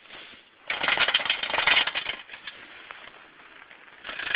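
Homemade RC snow plow truck clattering along a snowy sidewalk, a dense, rapid rattle that comes in two bursts: one about a second in and one near the end, with softer rattling between.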